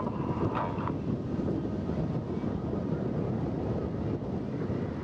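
Steady distant jet roar from the Red Arrows' nine BAE Hawk T1 jets, each with a single Adour turbofan, flying in formation overhead, mixed with wind buffeting the microphone.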